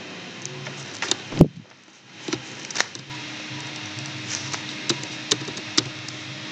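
Computer keyboard and mouse clicks: scattered sharp clicks of typing into a search box, the loudest a heavier thump about a second and a half in, over a steady low hum.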